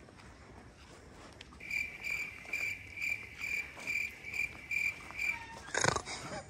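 Cricket chirping in a steady, evenly pulsing high trill, about two pulses a second, that starts and stops abruptly. This is typical of the 'crickets' awkward-silence sound effect. A short burst of laughter comes near the end.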